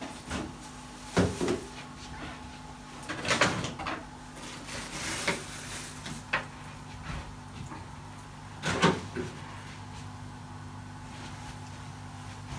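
Kitchen handling noises: about five knocks and clunks of kitchen items being moved and set down, over a steady low hum.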